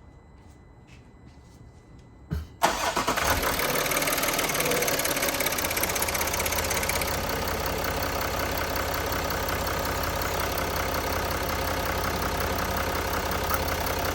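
2019 Range Rover diesel engine being started about two and a half seconds in: a brief starter crank, then it catches at once and settles into a steady idle, freshly filled with new oil.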